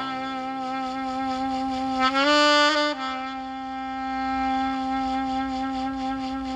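Instrumental background music led by a wind instrument holding long notes. The note shifts about two seconds in and settles on a new held note just before three seconds.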